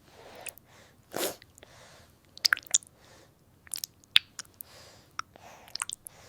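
A newborn's mouth and breathing sounds: sharp wet clicks and smacks of the lips and tongue, with brief squeaks, between soft breaths, one stronger breath about a second in.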